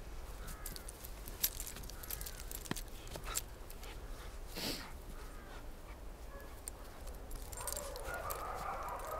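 Dogs playing in snow: scattered crunching steps and clicks, a few faint short whines, and one short breathy puff near the microphone about halfway through. Near the end come busier, jumbled dog sounds.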